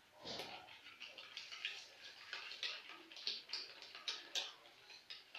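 A spoon clicking and scraping against a mixing bowl in quick, irregular strokes as pancake batter is stirred.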